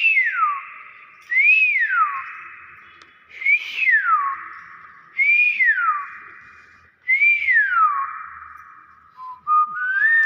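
Common hill myna whistling: five loud whistles about two seconds apart, each a quick rise then a long falling glide, then a shorter, different rising whistle near the end.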